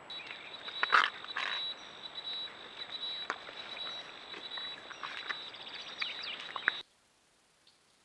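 Collared peccaries moving through wet mud at a waterhole: irregular squelches, splashes and clicks, the loudest about a second in, over a steady high-pitched buzz. The sound cuts off abruptly near the end, leaving near silence with a few faint ticks.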